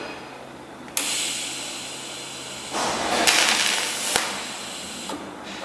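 TIG welding torch: the trigger is pressed about a second in and inert shielding gas hisses out alone, the pre-flow, with no arc yet. Nearly two seconds later the tungsten arc strikes and a louder, brighter hiss runs until the arc stops about five seconds in.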